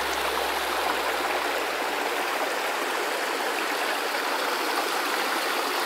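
A river running steadily, an even rushing of water.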